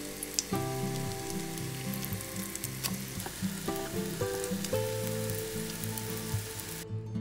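Breaded potato patties sizzling in hot oil in a frying pan, with a few light taps of a silicone spatula as they are turned over. The sizzling stops suddenly near the end. Soft background music plays underneath.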